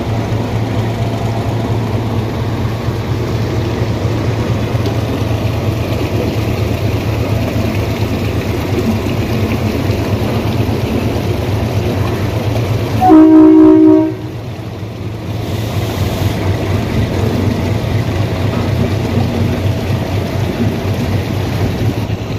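A steady low rumble runs throughout, and about two-thirds of the way in a train horn sounds once, loudly, for about a second.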